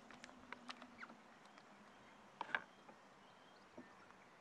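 Near silence with scattered faint clicks and taps from food being handled on a plate and dipped in soy sauce, with a pair of sharper clicks about two and a half seconds in.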